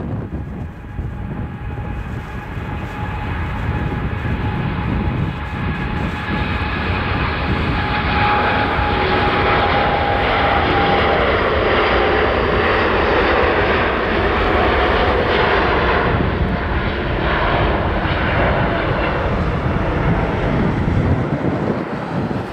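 Airbus A350-900's two Rolls-Royce Trent XWB turbofans at take-off thrust during the take-off roll, with a fan whine over the jet noise. It grows louder about a third of the way in and is loudest in the middle as the aircraft passes, while it accelerates toward lift-off.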